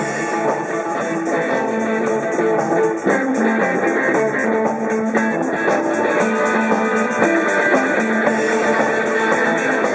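A live rock band playing: a semi-hollow-body electric guitar with a Bigsby vibrato, through an amplifier, leads over a drum kit. The music is loud and continuous, with sustained guitar notes over steady drum hits.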